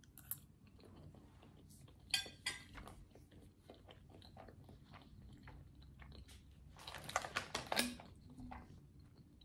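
Close-up chewing and mouth sounds of someone eating pasta, faint and clicky. Two louder crackling bursts, about two seconds in and about seven seconds in, as a plastic water bottle is handled.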